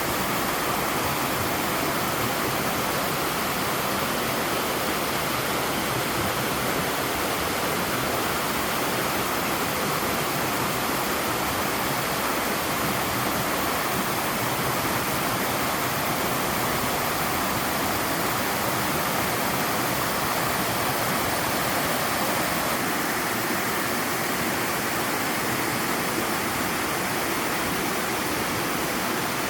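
A small sloping waterfall in a mountain stream, its water sliding down over a rock slab with a steady, unbroken rushing.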